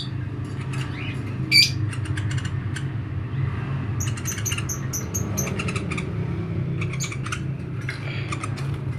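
Small woodpecker giving sharp, squeaky calls in short rapid series, with one loud call about a second and a half in.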